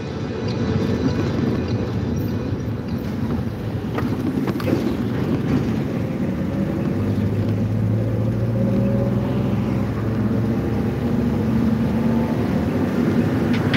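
Engine and road noise of a moving vehicle, heard from on board: a steady low engine hum over tyre rumble.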